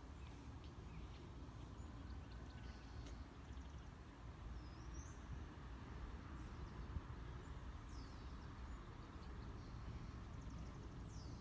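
Quiet outdoor ambience: a steady low rumble with a few faint, distant bird chirps and short trills, one about halfway through and two more near the end.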